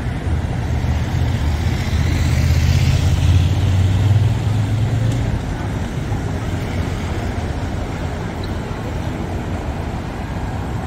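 Street traffic: a car drives past close by, its tyres rumbling on cobblestones, loudest about three to four seconds in. Then a steadier hum of traffic further off.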